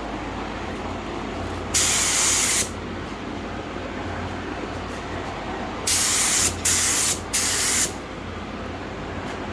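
Air spray gun spraying high build primer in short trigger pulls: one burst of hiss about two seconds in, then three quick bursts in a row a few seconds later, each cutting off sharply, over a steady low hum.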